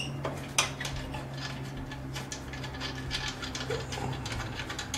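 Wrench working a bolt loose on a motorcycle's rear fender mount: scattered light metallic clicks and ticks, one sharper click about half a second in, over a steady low hum.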